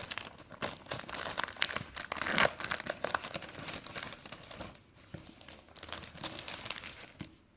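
Packaging crinkling and tearing as a small promotional Pokémon card package is torn open by hand, with dense crackles and sharp rips that are loudest about two and a half seconds in and die down after about five seconds.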